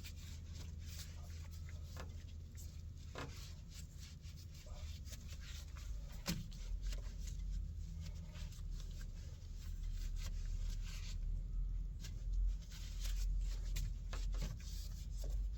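Scattered scraping and rubbing as caked dirt is cleaned off hydraulic hose fittings by hand, with a few light clicks, over a steady low rumble.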